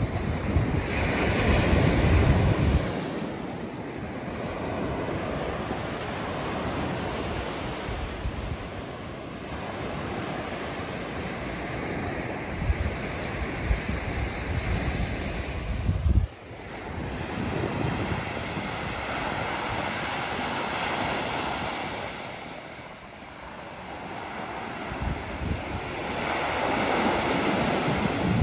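Small surf waves breaking and washing up a sandy beach, the wash swelling and fading every few seconds. Wind buffets the microphone in gusts, heaviest in the first few seconds, about halfway through and near the end.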